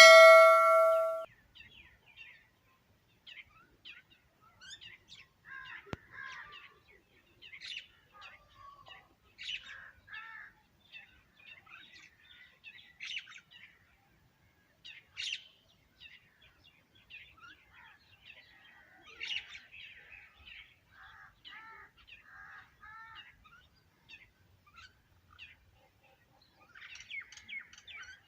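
A ringing metallic chime fading out over the first second, then birds chirping and twittering in scattered short calls throughout.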